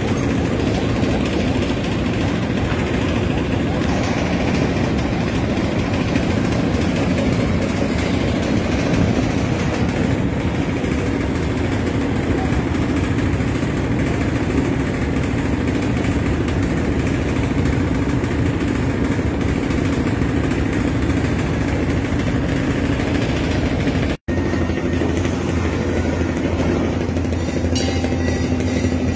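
Engine running steadily, a loud constant mechanical noise. About 24 seconds in it cuts out for an instant and resumes as a steadier low hum.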